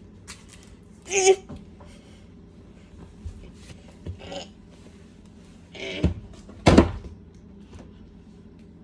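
Household objects knocked and set down while a shelf or cupboard is being reached into: a handful of separate clunks, the two loudest close together near the end.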